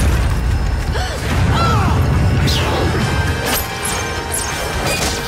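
Cartoon action sound effects over background music: a steady deep rumble, with several sharp crashing impacts and a few gliding swooshes.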